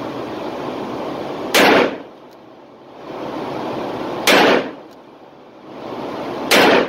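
Three single-action shots from a Taurus 692 revolver loaded with light .38 Special wadcutters, spaced about two and a half seconds apart, each with a short echo, over a steady background hum.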